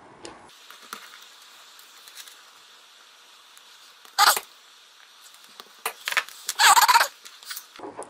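Wire strippers biting into and pulling off the insulation of a stranded power-cord wire: a single sharp snap about four seconds in, then a cluster of clicks and scrapes a couple of seconds later.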